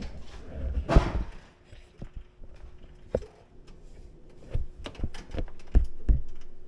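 A few irregular knocks and thumps, the loudest about a second in, over a faint steady hum.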